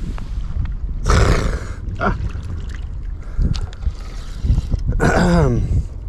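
Wind rumbling on the microphone, with a man's wordless vocal sounds: a short exclamation about a second in and a longer groan falling in pitch near the end.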